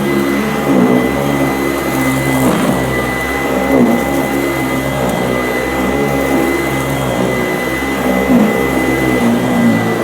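Sanitaire SC899E commercial upright vacuum cleaner running steadily with a high whine, crunching as it picks up gritty dirt from the floor.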